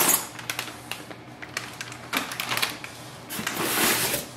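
Packaging being handled: the foil bag of a laser toner cartridge crinkling and a polystyrene packing insert scraping against the cardboard box as they are lifted out. It comes as a string of short rustles and clicks, with a longer rustle near the end.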